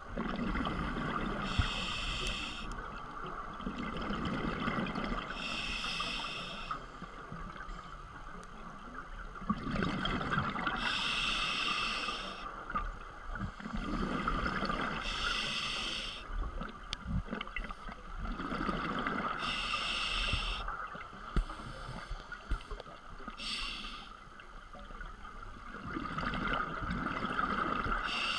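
Scuba regulator breathing underwater: a short hissing inhale through the demand valve every four to six seconds, each followed by a low bubbling, rumbling exhale.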